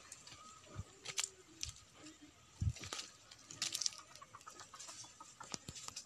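Chickens clucking, with scattered clicks and rustles throughout.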